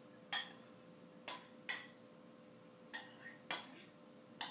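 A small ceramic bowl knocked against a large ceramic mixing bowl as feta is emptied into it: about six sharp clinks, the loudest about three and a half seconds in.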